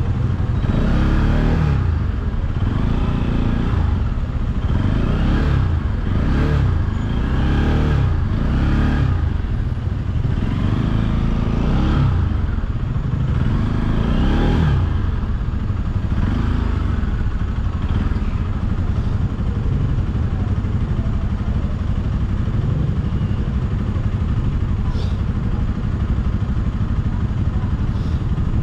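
Motorcycle engine revving up again and again, the pitch rising every second or two, then running steadier through the second half, over a constant low rumble.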